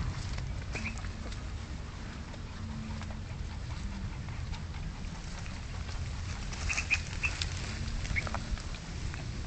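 Puppies giving short, high squeaks and whimpers: one about a second in, then a cluster near the end, over a steady low rumble.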